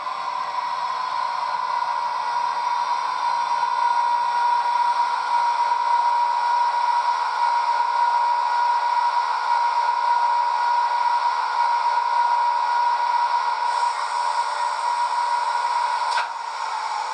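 DCC sound decoder playing a Class 86 electric locomotive through a small model speaker: a steady electric whine with a hiss. Near the end a sudden clunk sounds and the whine begins to wind down.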